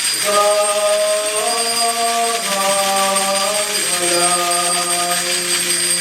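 Church choir singing a slow liturgical hymn, long held notes stepping from one pitch to the next.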